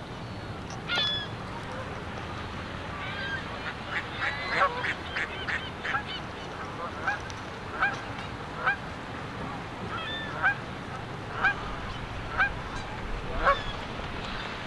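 Canada geese honking: one call about a second in, a flurry of overlapping honks from about three to six seconds in, then single honks about once a second.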